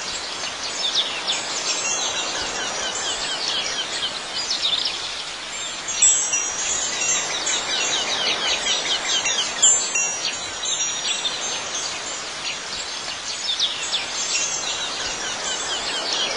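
Wind chimes tinkling continuously, with many quick high notes overlapping over a steady hiss.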